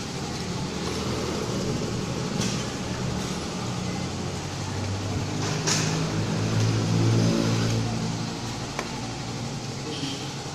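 A vehicle engine running steadily, swelling slightly in the middle, with a few sharp clicks over it.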